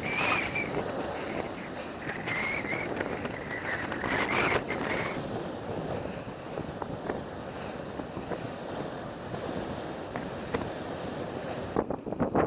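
Wind buffeting the microphone and water rushing past the hull of a sailboat under sail, with a thin wavering high whistle in the first few seconds.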